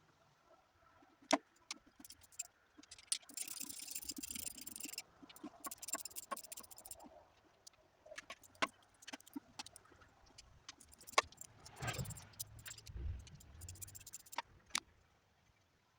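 Metal hand tools and engine parts clinking and clattering during an engine teardown: scattered sharp metallic knocks, with a few stretches of rapid, dense clicking.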